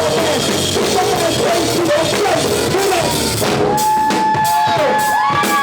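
Live band music with a drum kit and a melodic line; about two-thirds of the way in a long high note is held.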